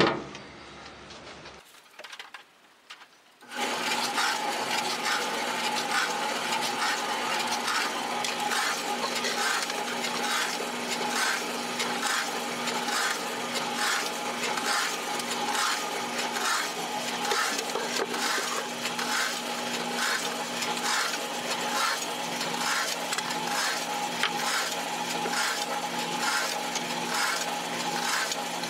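Homemade foundry sand muller running, mixing green sand with clay and water: a steady motor hum with a regular clatter about twice a second. It starts a few seconds in, after a brief knock and a short quiet.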